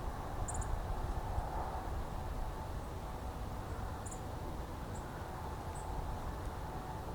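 Outdoor ambience of a steady low rumble, with four or five faint, very high, short chirps scattered through it.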